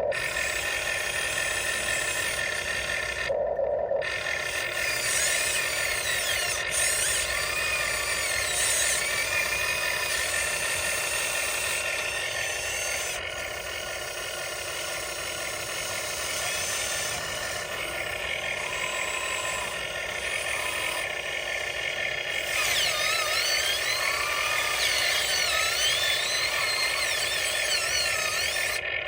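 Huina 1599 RC excavator's electric motors whining as it digs, the pitch rising and falling as the motors speed up and slow, with a brief break about three seconds in.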